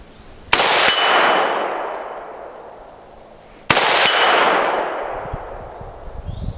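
Two shots from a 7.62x39 AK-47 semi-auto rifle about three seconds apart, each with a long echoing tail and a metallic ring.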